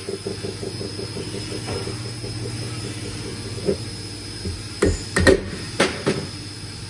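Mallet tapping on a CNC mill spindle assembly to drive the spindle out of its housing: several sharp metallic knocks, one near the middle and a quick cluster about five to six seconds in. Before them, a fast even run of light clicks over a steady low hum.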